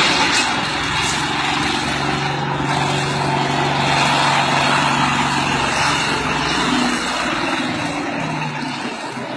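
A large engine, likely a heavy work machine's diesel, running steadily under load with a wide mechanical noise, its pitch shifting slightly near the end.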